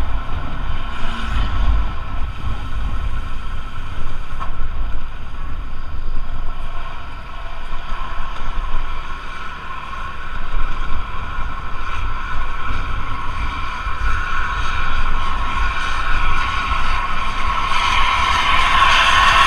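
Intercity bus engine with a steady, high jet-like whine over a low rumble, growing louder near the end; wind buffets the microphone.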